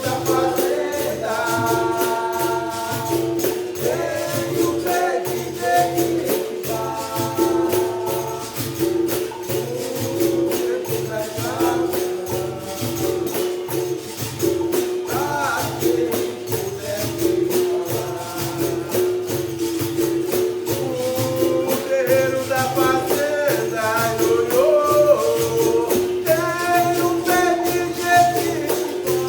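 Capoeira bateria playing the slow benguela toque: berimbau with a pandeiro and shakers keeping an even rhythm, and a voice singing a capoeira song over it.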